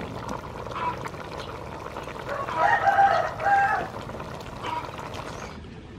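A rooster crowing once, starting about two and a half seconds in and lasting over a second, the loudest sound here; a few short clucks come before and after it.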